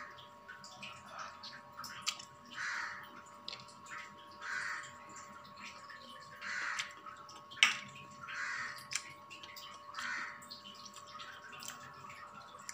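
A bird calling over and over, one short call about every one and a half to two seconds. A single sharp clink of a spoon against a steel plate comes about seven and a half seconds in and is the loudest sound.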